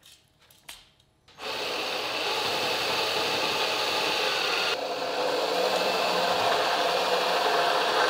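Cordless drill boring handle holes through a painted wooden cabinet door: a steady drilling noise starting about a second and a half in, its tone changing about five seconds in.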